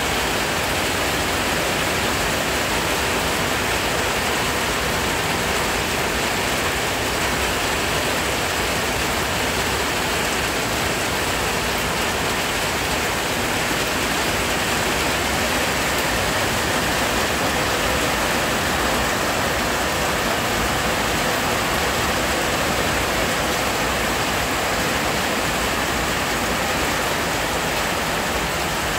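Loud, heavy rain falling steadily, an even hiss and patter that does not let up.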